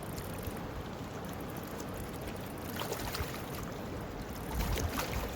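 Steady rush of flowing river water with wind rumbling on the microphone, and a few light clicks and knocks partway through and near the end.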